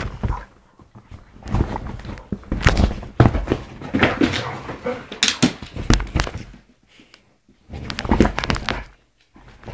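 Two dogs, a Vizsla and a Lurcher, play-fighting on a sofa: scuffling, thuds of bodies and paws and rustling of the cushions, coming in irregular bursts with short lulls, one about seven seconds in.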